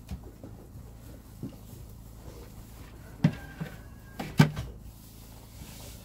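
Two sharp knocks about a second apart, the first with a short metallic ring, with a few fainter knocks before them: a metal feed pitcher being handled and set down while goats are fed.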